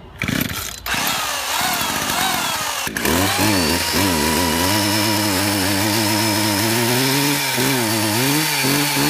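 Chainsaw running. After a short burst near the start and an uneven, rougher stretch, it settles about three seconds in into a steady drone with a slightly wavering pitch.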